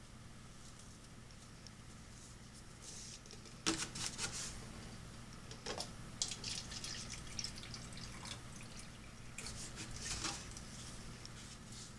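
Water pouring and dripping onto potted pepper plants in short, irregular splashing bursts. The first comes about four seconds in, over a low steady hum.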